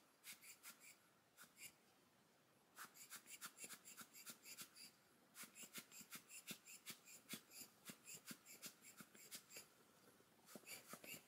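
Faint, rapid puffs of air from a squeezed rubber bulb blower (an alcohol ink blower tool) pushing wet watercolor across paper. The puffs come in runs of about four or five a second, with short pauses between runs.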